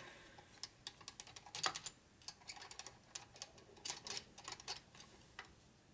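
A hand screwdriver turning in the screws of a Harley-Davidson Sportster's aluminium cam cover under light pressure, making faint, quick metal clicks in irregular clusters.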